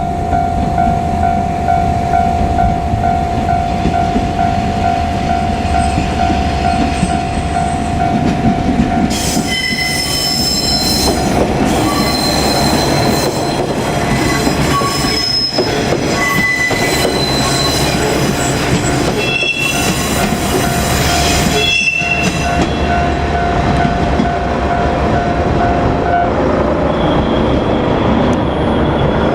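JR Kyushu KiHa 47 diesel railcars rolling over a level crossing, their diesel engines running low underneath. From about 9 to 22 seconds in, the wheels squeal high-pitched on the rails. The crossing's warning bell rings steadily and stops a few seconds before the end.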